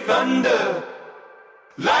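Background pop song: a sung vocal line that fades away about a second in, leaving a brief, nearly silent break before the beat and vocals come back in just before the end.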